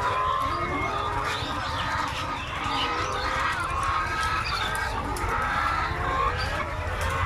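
Many chickens in a poultry flock calling together, a continuous chorus of overlapping clucks, over a steady low rumble.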